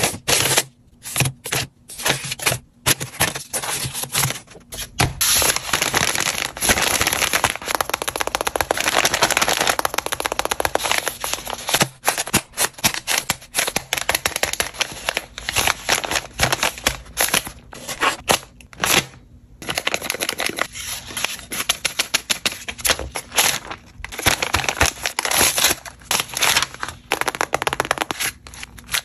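Paper crinkling and rustling as hands handle homemade paper blind bags and sheets, with many small crackles and clicks and a few brief pauses.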